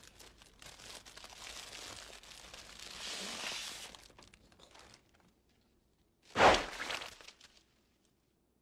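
Paper airsickness bag crinkling as it is handled and twisted shut, then a single loud pop about six and a half seconds in as the air-filled bag is burst.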